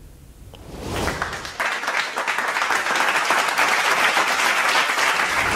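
Applause from many people clapping, swelling in about a second in and then holding steady.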